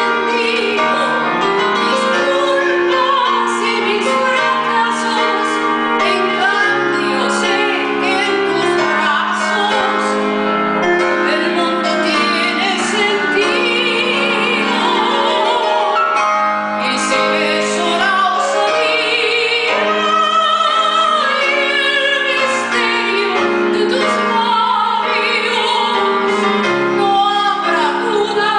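A woman singing a song with strong vibrato, accompanied by a keyboard playing piano chords.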